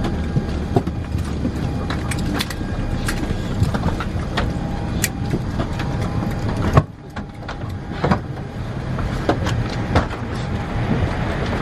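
Airliner cabin noise in a Boeing 787-8 after landing: a steady low hum with many scattered sharp clicks and knocks from passengers moving about. The sound drops away briefly about seven seconds in, then resumes.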